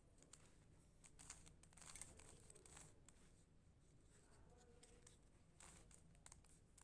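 Near silence with faint, scattered clicks and rustles of plastic puzzle pieces being turned by hand.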